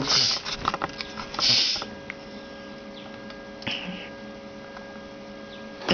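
Camera handling noise, rustles and light knocks as the camera is moved, then a steady faint hum of several tones from about two seconds in, with one short hiss midway.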